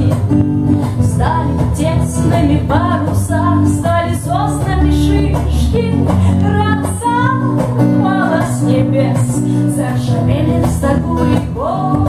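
Live song: a woman singing over a strummed acoustic guitar, with an electric bass guitar playing low notes underneath.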